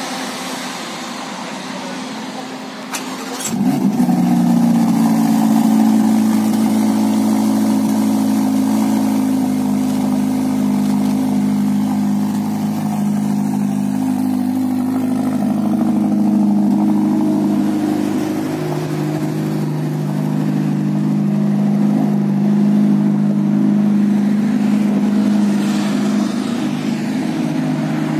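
Ferrari Roma's 3.9-litre twin-turbo V8 starts about three seconds in, with a click and a short rising flare, then settles into a steady idle.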